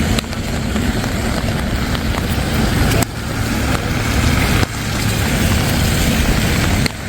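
Rainy street ambience: steady rain hiss under a low rumble from a motor vehicle. The level dips suddenly three times.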